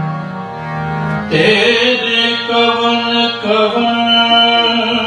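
Harmonium playing, holding low drone notes, then about a second in a man's voice starts singing a Punjabi devotional hymn (kirtan) over the harmonium.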